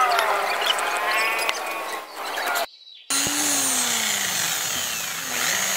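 Electric drill boring a hole in wood. The motor whine rises and falls in pitch as it bites, cuts out briefly about halfway, then comes back lower and slowing.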